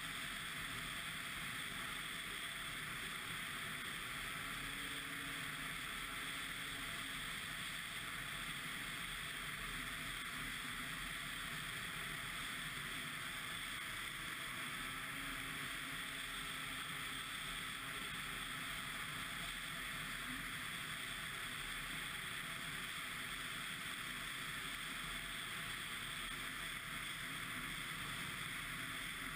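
Ski-Doo MXZ 600 X-RS snowmobile running steadily under way: a faint engine drone under an even rushing hiss.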